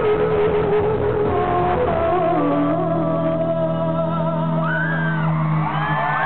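Live rock band and singer finishing a song: a held sung note over guitar gives way to a low sustained chord that cuts off about six seconds in. From about four and a half seconds in, the audience screams and whoops.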